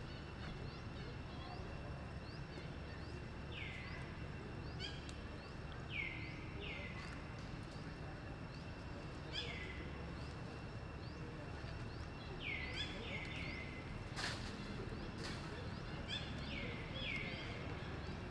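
Short, high animal calls, each one falling in pitch, repeated in small clusters of two or three over a steady background hiss. Two sharp clicks come a little past the middle.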